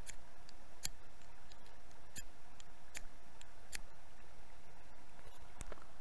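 A knife spine scraped sharply down a wet ferrocerium rod (fire steel) about six times, roughly once a second. The rod still throws sparks though it has just been soaked.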